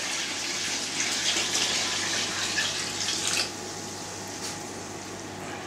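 Cold water poured from a plastic bucket into a plastic fermenting bucket of steamed grain mash, splashing steadily as the hot mash is diluted; the pour stops about three and a half seconds in.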